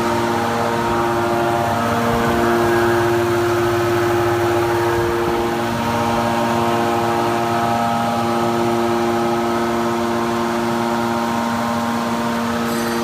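Automatic hydraulic metal baler running: a steady machine hum with several held tones from its motor and hydraulic pump, some fading and returning every few seconds as the load shifts.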